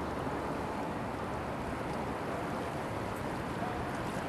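Steady rushing noise of wind on the camcorder microphone, mixed with the flow of the flood-swollen Chaudière River.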